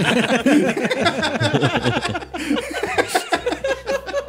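Several people laughing and chuckling together, a string of short overlapping laughs.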